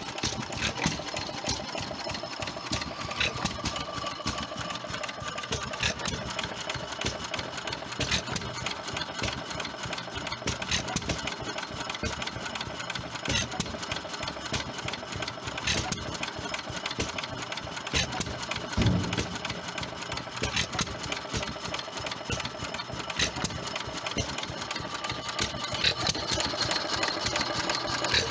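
Fairbanks-Morse headless Z hit-and-miss stationary engine running, a louder firing knock about every two and a half seconds over a steady mechanical clatter and ticking.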